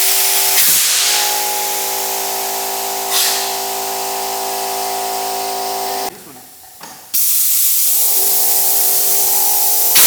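Small air compressor running with a loud steady hiss over a droning motor hum. It drops out for about a second just after the six-second mark, then runs on.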